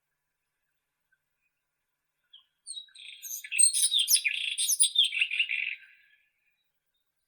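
White-throated robin (Irania gutturalis) singing one song phrase of quick, varied notes, starting about two seconds in and lasting about three and a half seconds.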